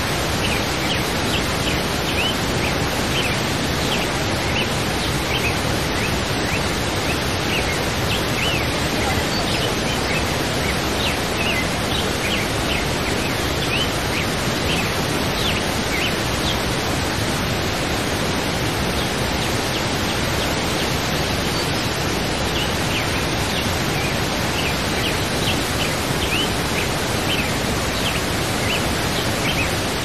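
Waterfall pouring into a pool: a steady, even rush of falling water. Birds chirp over it now and then, in short high calls that come thickest in the middle and near the end.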